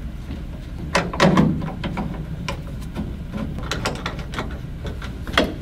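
Boiler display panel being handled and screwed back into place with a hand screwdriver: a cluster of knocks and rattles about a second in, then scattered clicks and scrapes, and a sharp knock near the end.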